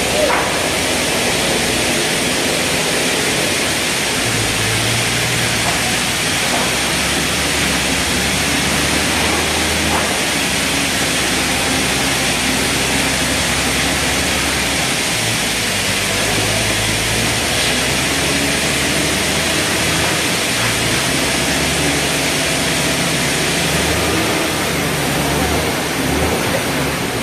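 A large log band saw and the sawmill machinery running: a steady, loud mechanical noise with a low hum that grows and fades every few seconds.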